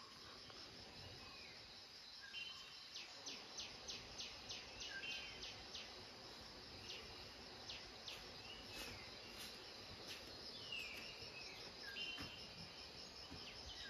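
Faint outdoor chorus of insects, a steady high shrill hum, with birds calling over it: a quick run of sharp notes, about five a second, a few seconds in, and short falling whistles now and then.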